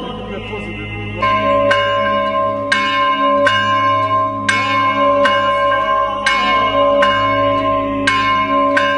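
A monastery bell is struck over and over, about two strikes a second and not quite evenly, with a long ringing hum carrying between strikes. It starts about a second in and stops abruptly near the end.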